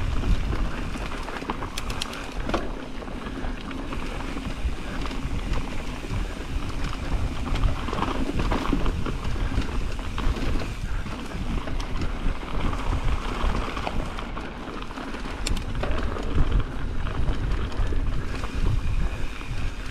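Mountain bike rolling fast down a smooth dirt singletrack, with wind rushing over the microphone, tyre noise, and a few sharp clicks from the bike and trail.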